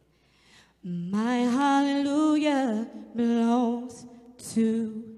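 A woman singing gospel praise solo and unaccompanied, in long held notes: one of about two seconds, then two shorter ones.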